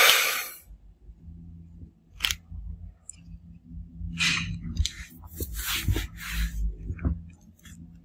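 Short rustles and scrapes from hands turning over a bare Redmi Note 7 Pro midframe and laying it down on a cloth, over a faint steady low hum.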